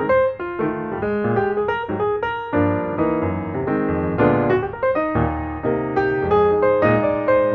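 Piano music: a melody over chords, notes struck in steady succession.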